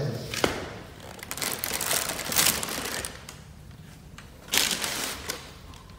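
Handling noise while a ceiling fan blade is positioned on the motor housing: crinkling of the plastic sheet and styrofoam packing, with a sharp click about half a second in and bursts of rustling in the middle and again near the end.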